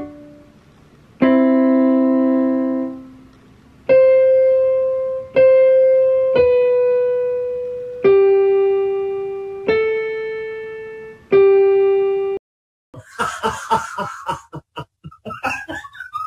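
Electronic keyboard played slowly in a piano voice: one chord, then six single notes, each struck and left to fade. It cuts off suddenly about 12 seconds in, and a burst of rapid clapping with shouting follows.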